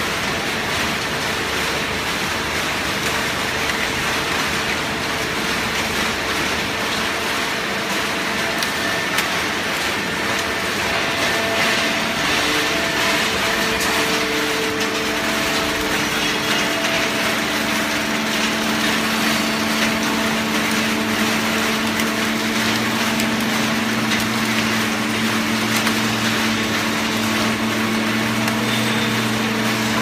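Horizontal hydraulic baler running: steady mechanical noise from the machine and its hydraulic power unit, with a low hum that grows stronger from a little past the middle.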